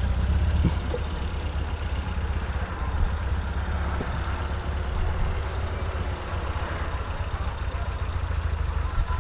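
A classic car's engine running steadily at low revs with a low rumble.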